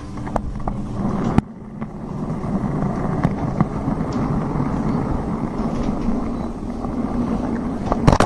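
Model train running along its track, heard from a camera riding on board: a steady rattling run of the motor and wheels with occasional sharp clicks, ending in a few loud knocks.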